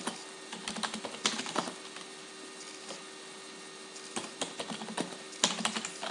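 Typing on a computer keyboard: quick runs of key clicks, pausing for about two seconds in the middle before the clicking starts again.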